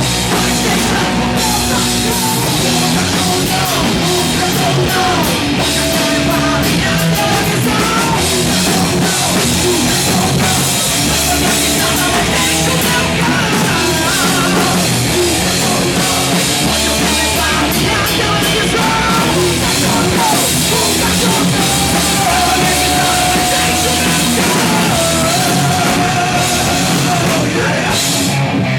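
Hard rock band playing live: drum kit, bass and electric guitars, loud and unbroken, with held, wavering guitar notes over the band in the second half.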